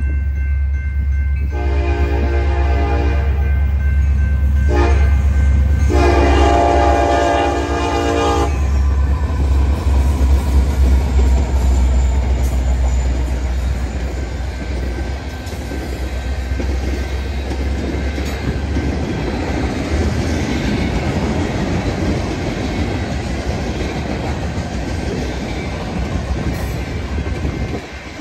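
Diesel freight locomotives passing close by with a heavy engine rumble. The air horn sounds a long blast, a short one and another long one. The train's wheels then run on with a steady clatter over the rails.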